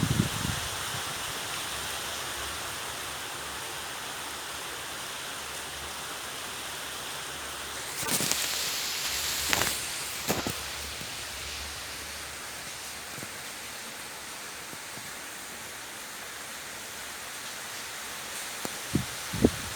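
Steady rain falling, with a brief louder hissing rush of a couple of seconds about eight seconds in and a few short low knocks near the end.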